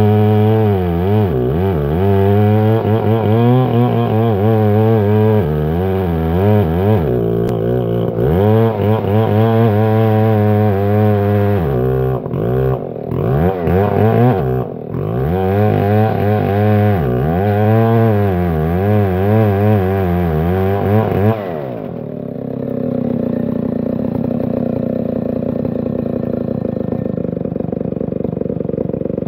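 Stihl 070 two-stroke chainsaw ripping a log lengthwise, its engine speed rising and falling as the chain bites into the wood. About 22 seconds in, the cut stops and the saw drops to a steady idle.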